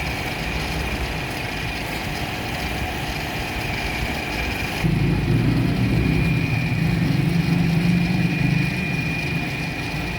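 A motor running steadily with a constant high whine. About five seconds in, a louder low hum sets in suddenly and then eases off again near the end.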